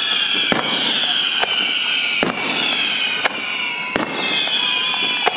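Aerial fireworks display: shells bursting with sharp bangs every second or so over a continuous crackle, with high whistles that slowly fall in pitch.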